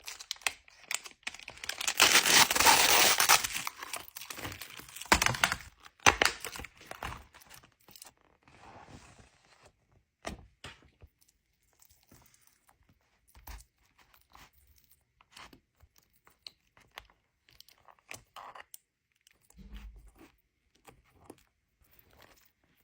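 Toy packaging being torn open and crinkled for several seconds, loudest a couple of seconds in, then scattered small clicks and taps as the contents are handled.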